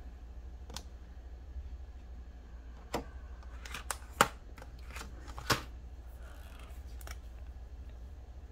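Short, light plastic clicks and taps as pastel highlighter pens are handled in their clear plastic case and one is pulled out; about eight clicks, scattered, the sharpest about four seconds in.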